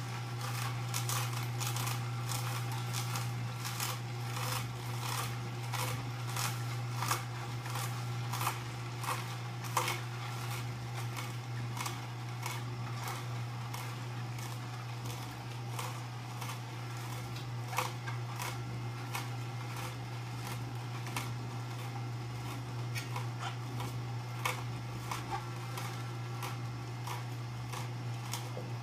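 Horizontal slow juicer running with a steady low motor hum, with irregular crackling and crunching as vegetables are pushed down the feed chute and crushed by the auger.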